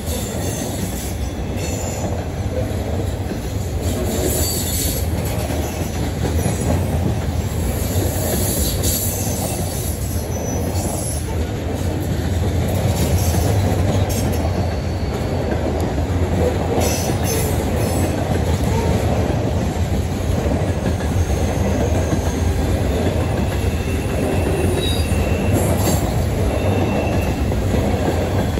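Loaded coal hopper cars of a freight train rolling past close by: a loud, steady rumble of steel wheels on rail, with brief high-pitched wheel squeals now and then.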